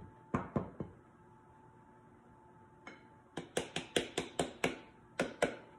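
Ceramic bowls clinking as flour is tipped from a white bowl into a mixing bowl of batter, then a quick run of about ten sharp taps as the upturned flour bowl is knocked to shake out the last of the flour.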